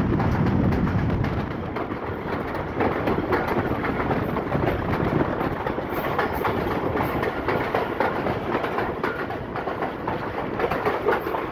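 Passenger train running at speed on a branch line, heard from the carriage doorway: a steady rumble of wheels on rails with a fast, uneven clatter over the rail joints.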